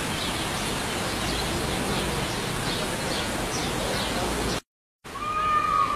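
Steady outdoor hiss with faint bird chirps, broken by a brief dead-silent gap about three-quarters of the way through. Just after the gap, a peacock begins a long, slightly falling call.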